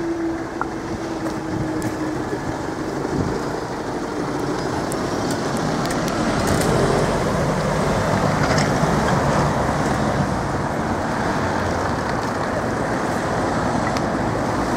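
Road traffic moving over the level crossing after the barriers have lifted, with cars and a lorry passing and the noise getting louder about six seconds in. A steady hum runs through the first four seconds or so, then fades.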